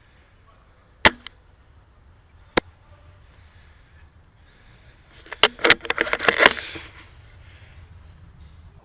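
Airsoft fire: a sharp single snap about a second in and another at two and a half seconds, then a quick cluster of clicks and rattling between about five and six and a half seconds in.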